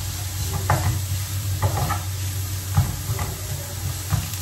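Shredded red cabbage sizzling in oil in a frying pan while a wooden spatula stirs it, scraping the pan about once a second, over a steady low hum.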